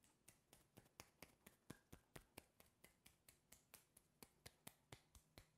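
A hand giving soft, quick knocking taps along the other arm in self-massage, a faint, even run of about five light taps a second.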